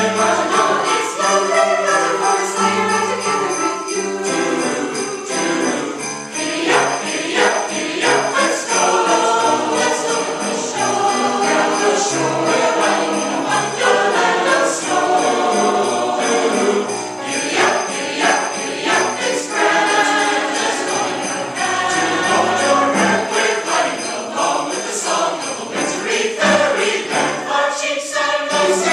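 Choir singing a Christmas song over sleigh bells jingling steadily.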